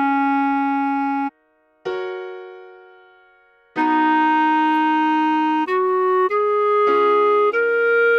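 Clarinet playing the melody in slow held notes: one note held to about a second in, then after a short gap a piano chord struck once and dying away, before the clarinet comes back near the middle with a phrase of notes climbing step by step.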